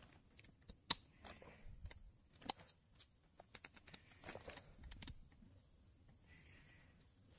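Faint, scattered metallic clicks of steel circlip pliers and a circlip against an aluminium S195 engine piston while a piston-pin lock ring is worked into its groove in the pin bore.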